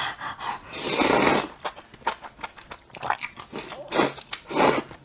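Noodles slurped from a bowl of spicy malatang soup: two long slurps, about a second in and near the end, with wet chewing and lip-smacking between.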